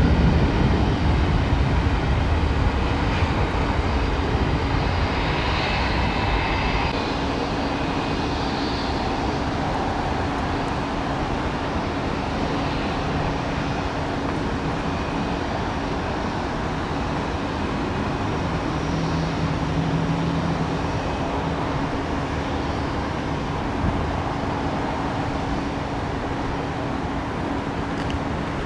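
Jet airliner engines: a deep rumble over the first several seconds that eases off, then a steady engine hum with a constant low tone.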